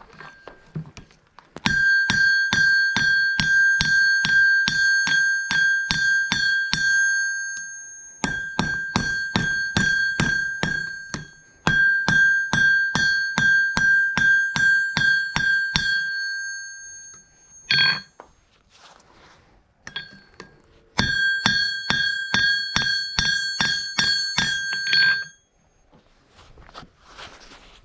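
Hand hammer striking a hot carriage bolt on an anvil at about three blows a second, each blow ringing with a clear bell-like tone. The blows come in four runs with short pauses between, plus one lone blow in the middle: forging the bolt into a miniature hatchet.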